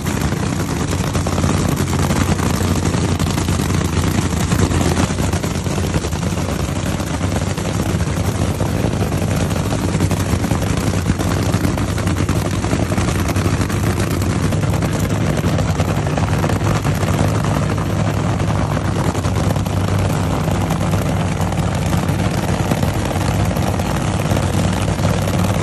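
Supercharged nitromethane V8 of an NHRA Funny Car running at idle: a loud, fast, steady rattle of firing strokes.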